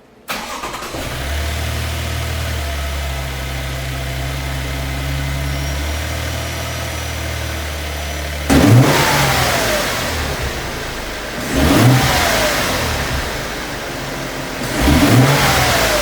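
A 3rd-generation Toyota Tundra's twin-turbo V6, fitted with a SXTH Element cold air intake, starts up and settles to a steady idle. It is then revved three times, each a sharp blip that falls back to idle.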